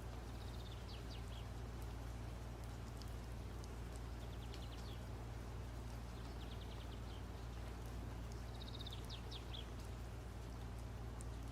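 Faint birds chirping: short, rapid trills repeated about four times, over a steady low hum.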